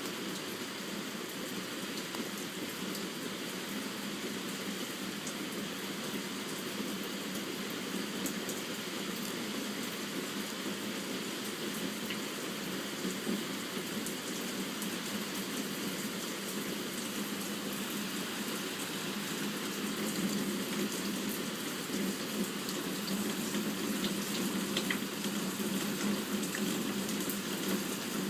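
Steady rain falling, an even hiss throughout, with a few faint ticks.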